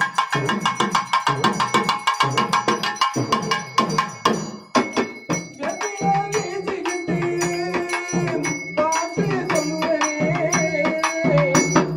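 Tamil devotional Amman song: a fast, even hand-drum rhythm, then a wavering melody joins the drumming about halfway in.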